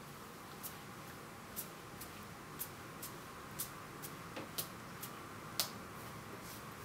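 A clock ticking, a sharper tick about once a second with a fainter one in between, over a faint steady hiss.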